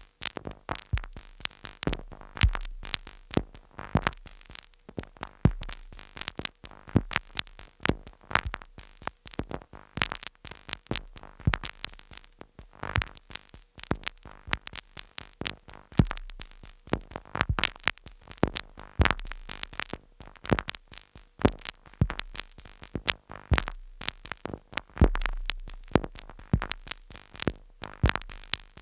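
Two Behringer Neutron analog synthesizers, stepped by a Korg SQ-10 sequencer, playing glitchy noise: rapid, irregular clicks and snaps across the whole range, with a low bass drone that comes in and drops out every few seconds.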